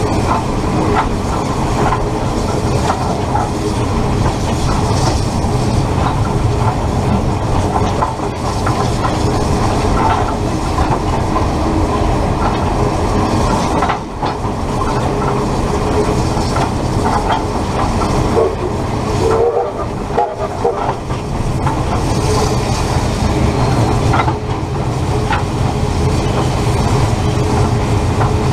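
Train running on the rails, heard close up from the front of a locomotive coupled behind a steam locomotive's tender. A steady heavy rumble carries clicks of wheels over rail joints, with a brief higher tone about two-thirds of the way through.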